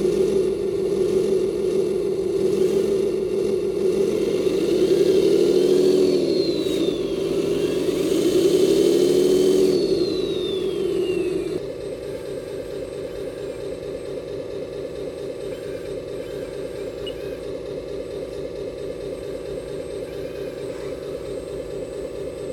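Electric hydraulic pump of an RC hooklift truck whining steadily while the tipper bin is raised, its pitch swinging up and down twice. Near the middle it cuts to a quieter, steady, fast-pulsing whine from the hydraulics of an RC excavator digging.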